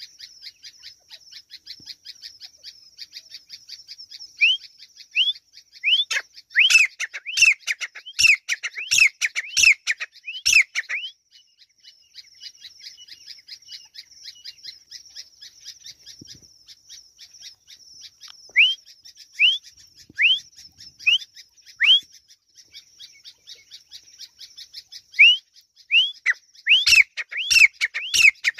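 Grey francolin calling: shrill whistled notes that rise and fall, given in quick runs in three bouts, the loudest about six seconds in and near the end. A steady fast ticking runs underneath.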